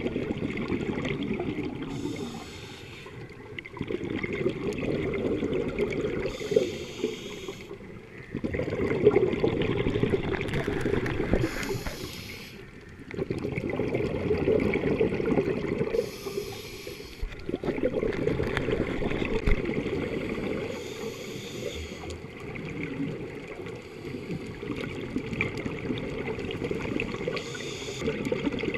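Scuba diver breathing through a regulator, heard underwater: a short hissing inhale every four to five seconds, each followed by a longer rush of bubbling exhaled air, about six breaths in all.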